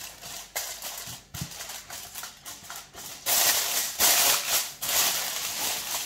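Aluminium foil crinkling and crackling as a metal pot lid is pressed down over a foil-sealed cooking pot, sealing it for slow dum cooking. The crinkling gets louder and denser about three seconds in.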